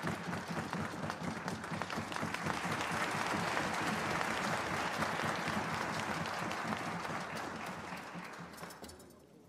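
Audience applauding, a dense patter of clapping that swells through the middle and dies away near the end.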